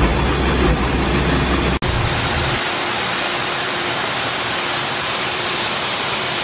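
Grain-handling augers running with a low hum for the first couple of seconds. After a cut, a steady rushing hiss of shelled corn pouring from the roof spout into a steel grain bin.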